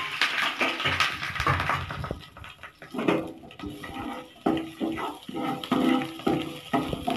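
Steel spoon stirring and scraping chillies, curry leaves and ginger-garlic paste around a non-stick frying pan in hot oil, with the spices sizzling. From about three seconds in, the scraping comes as short repeated strokes, one or two a second, each with a brief squeaky tone.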